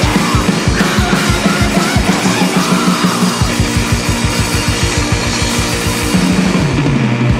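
Heavy punk-metal song with distorted electric guitar and a rock drum kit; the kick drum pattern speeds up to a rapid run about halfway through.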